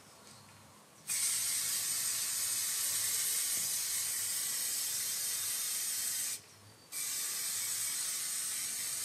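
Aerosol can of Rock Oil Factory Foam filter oil spraying in two long hissing bursts: one starting about a second in and running about five seconds, then a short break, then a second spray.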